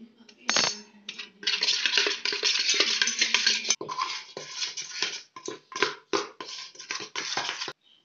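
Rapid scraping and clattering of kitchen utensils, dense from about a second and a half in and breaking into separate short strokes near the end, with a single knock just before.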